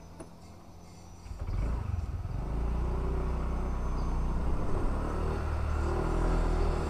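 Motor scooter being ridden: a low rumble of engine and wind on the microphone jumps up about a second and a half in as the scooter picks up speed, then holds steady.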